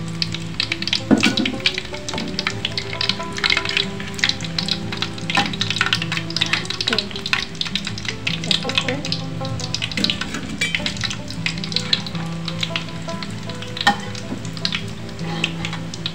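Potato croquettes deep-frying in hot oil in a wok, a dense steady crackle and sizzle. A few sharper knocks, about a second in and again near the end, as the metal spatula lifts croquettes out against the aluminium wok.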